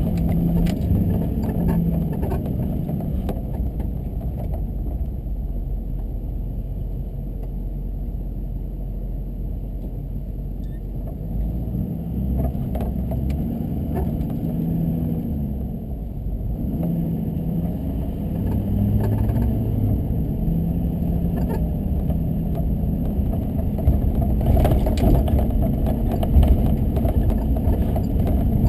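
Car engine and road noise while driving: a steady low rumble, with the engine note rising and falling as the revs change.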